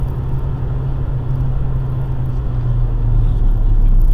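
Car driving, heard from inside the cabin through a dashcam microphone: a steady low drone of engine and road noise that grows a little louder near the end.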